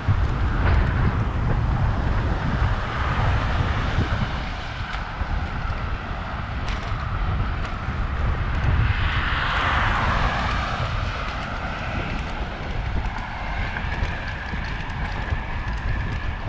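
Wind rumbling and buffeting on a bike-mounted camera's microphone while cycling, with road traffic noise; a vehicle swells up and fades away about ten seconds in.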